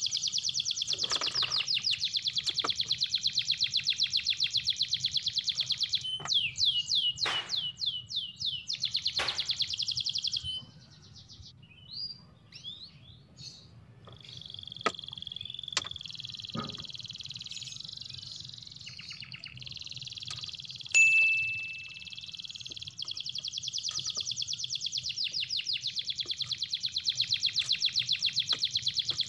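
Birds chirping: a fast, high trill that runs for about ten seconds with a few falling chirps, breaks off into scattered chirps and clicks, then starts again about twenty-three seconds in. A brief sharp sound stands out about twenty-one seconds in.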